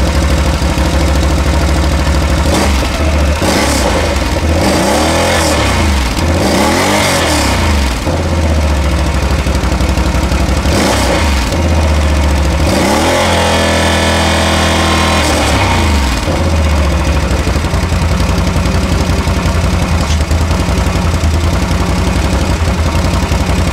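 Can-Am Outlander XMR 850 ATV's V-twin engine on its stock muffler, idling and revved several times, each rev rising and dropping back. It settles into a steady idle for the last several seconds.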